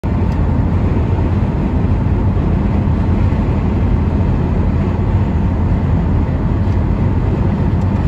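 Steady low rumble of a car driving at motorway speed, tyre and engine noise heard from inside the cabin.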